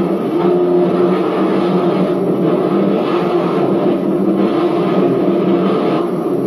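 Race car engine running steadily with a slightly wavering pitch, on a thin recording with almost no deep bass.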